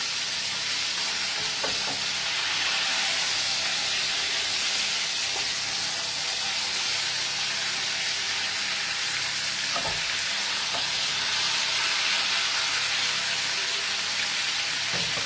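Stuffed meat roast sizzling steadily as it browns in a pan on a gas hob, with a few light knocks of a wooden spatula against the pan as it is turned, about two seconds in and again around ten seconds.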